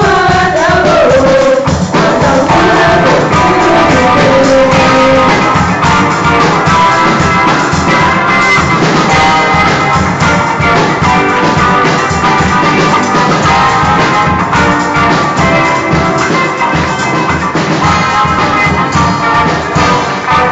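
Rock-style worship song played by a band of electric guitar, acoustic guitar, bass and drum kit, with a sung vocal line in the first few seconds and steady drum hits throughout.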